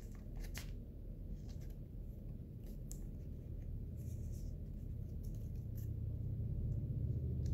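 A trading card being slid into a plastic card sleeve and handled: faint scratchy rustles and small ticks, over a low hum that grows louder near the end.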